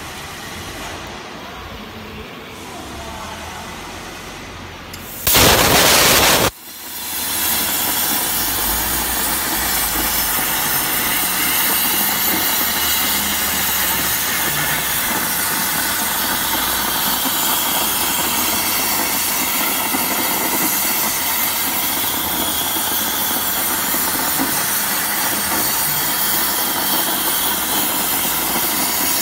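Table CNC plasma cutter starting a cut: a loud rush of hiss lasting just over a second about five seconds in, then, after a brief dip, the plasma torch's steady hiss as its arc cuts through steel plate.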